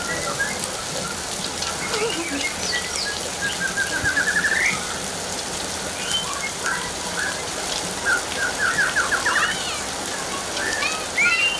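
Steady hiss of heavy rain pouring down and splashing onto flooded ground, with bird chirps and quick trilled runs over it, the longest trills about four and nine seconds in.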